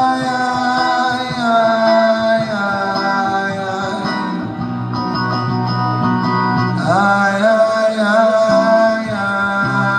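Live music: a man sings long, held notes with sliding pitch over guitar-led band accompaniment. A new held note starts about seven seconds in.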